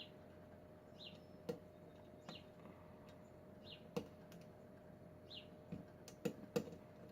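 Faint, irregular small clicks and taps of a lock pick and tension wrench working the pins of a Kwikset pin-tumbler lock, with a steady low hum beneath.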